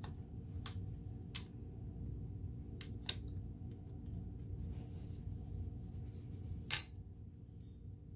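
A handful of short, sharp metallic clicks at uneven intervals, the loudest near the end, from parts of a Kenmore sewing machine being handled during cleaning and oiling. A steady low hum runs underneath.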